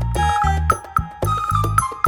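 Background music with a bouncy beat: bass notes, a bright tuned melody and sharp percussion hits.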